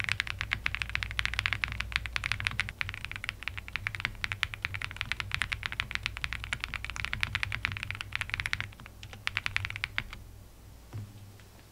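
Rapid typing on a Meletrix Zoom98 custom mechanical keyboard fitted with TTC Block switches and GMK keycaps: a dense, fast run of keystroke clacks that thins out and stops about ten seconds in.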